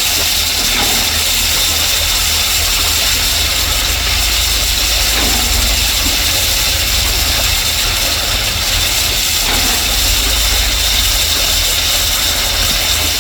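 Excavator's diesel engine running steadily, with a brief rise and fall in pitch about five and nine seconds in.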